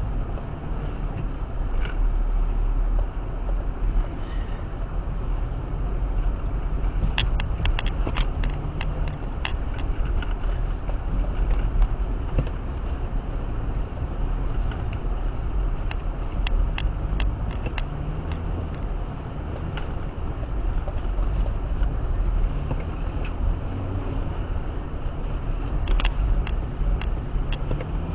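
A car driving, with a steady low engine and road rumble and the engine note rising and falling slightly, broken three times by quick runs of sharp clicks or rattles.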